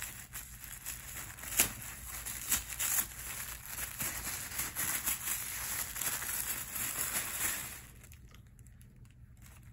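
Packaging crinkling and rustling, with small clicks and taps, as an advent-calendar compartment is opened and the toy inside is unwrapped. It dies down near the end.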